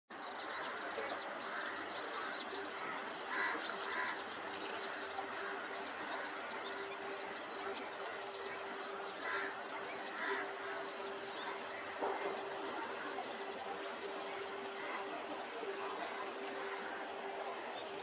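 Many birds calling together in a dense chorus of short, high, falling chirps, with a few louder, harsher calls now and then and a steady low hum underneath.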